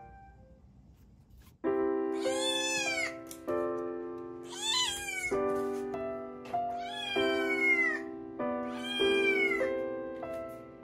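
Munchkin cat meowing four times, about two seconds apart, each meow a high call that falls away at the end, over background music of steady sustained keyboard notes that starts about a second and a half in.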